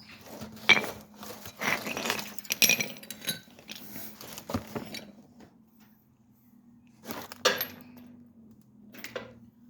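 Metal brake parts clinking and clattering as a brake caliper and its bolts are handled, a quick run of knocks for the first few seconds, then a pause and two single clinks near the end.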